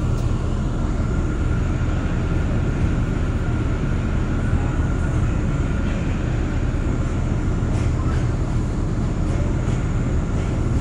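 J/Z subway train running along elevated track, heard from inside the front car: a steady low rumble of wheels and motors with a faint high whine over it.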